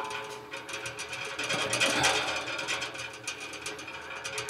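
Rapid metallic clicking as a knockout punch is cranked on its draw stud through the stainless steel kettle wall.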